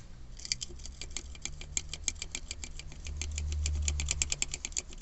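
Rapid ticking rattle, about nine clicks a second, from a Suzuki Jimny's gear shift lever: the noise fault in the shifter. Underneath, a low engine hum that grows louder for about a second around three seconds in.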